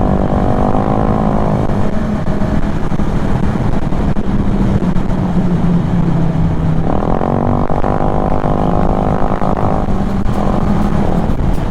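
Kymco Xciting 400 scooter's single-cylinder engine running under way, with wind noise. The engine note climbs briefly about half a second in, then about seven seconds in the throttle opens and the note jumps up and holds for about three seconds before easing off.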